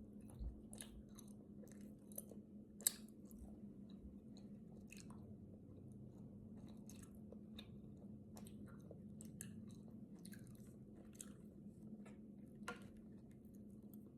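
Close-miked eating of peel-off strawberry jelly: soft, wet chewing and mouth smacks come scattered throughout, with a sharper click about three seconds in and another near the end. A faint steady low hum runs underneath.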